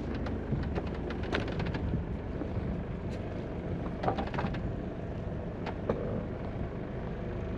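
Gulfstar 40 sailboat under way in a stiff breeze: a steady low hum with wind on the microphone, and scattered light clicks and knocks, a cluster about a second in and another just past the middle.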